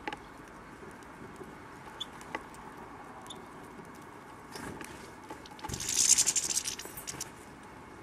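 A few faint clicks, then, after about five and a half seconds, a loud close flutter of a European goldfinch's wings lasting about a second and a half: rapid fine beats as the bird takes off.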